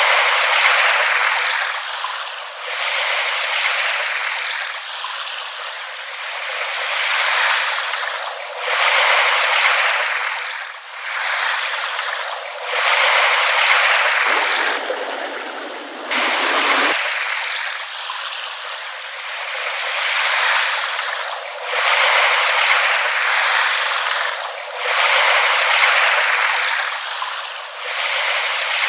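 Small waves lapping at the shore, the wash rising and falling in gentle swells every two to four seconds.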